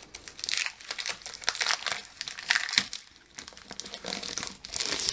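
Sheets of a 12x12 scrapbook paper pad being handled and leafed through: repeated rustling and crinkling of paper in a series of short bursts.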